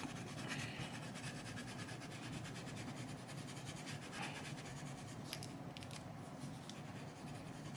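Eraser scrubbing back and forth on a graphics card's gold edge-connector pins, a faint steady rubbing that cleans the contacts. A few light ticks come a little past the middle.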